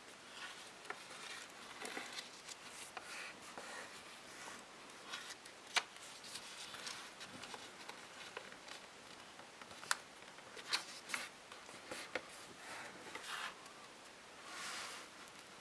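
A small square sheet of paper being folded and creased by hand: soft rustling and rubbing of paper and fingers, broken by a handful of sharp crisp clicks as folds are pressed flat.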